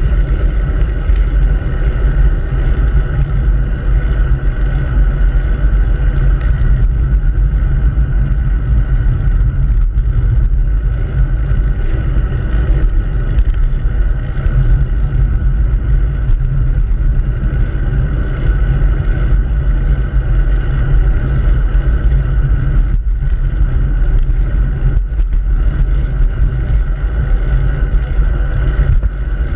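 Wind rushing over a handlebar-mounted camera's microphone on a moving bicycle, with steady low rumble from the tyres on the road.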